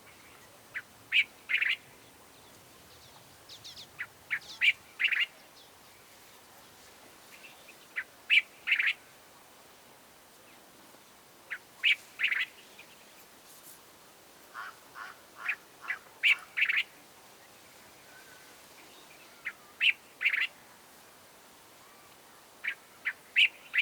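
Cape bulbul singing: short phrases of three or four quick notes, repeated about every three to four seconds.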